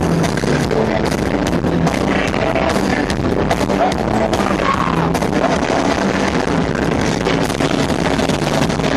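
A ska band playing live in an arena, heard from the audience: electric guitars and drums in a loud, continuous wash of band sound with the hall's reverberation.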